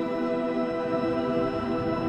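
Background music: a soft ambient pad of steady held chords.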